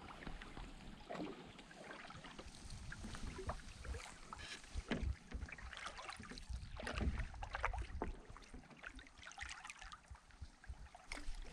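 Canoe out on the water, with irregular paddle splashes and knocks against the hull over a low rumble.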